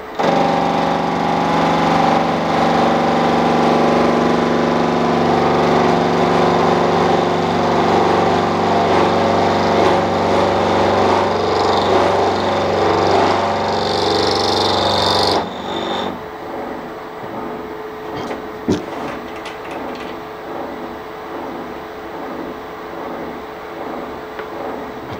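Milling machine running with its cutter gashing the leads on a ring gear's teeth: a loud, steady machine sound. About fifteen seconds in it drops abruptly to a quieter run with an even pulsing.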